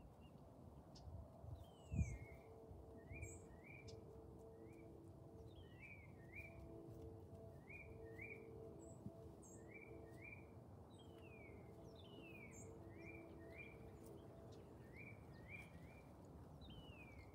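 Faint birdsong: a bird repeating short, downward-slurred chirps many times over a faint steady hum. A single low thump comes about two seconds in.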